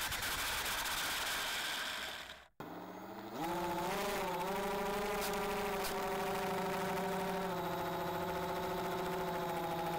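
Electric motor and propeller of a small RC ground-effect plane, heard from a camera on the plane. At first there is mostly a rushing noise from the airflow. Then, after a brief dropout about two and a half seconds in, a steady motor whine rises slightly in pitch over the next second and holds at full throttle.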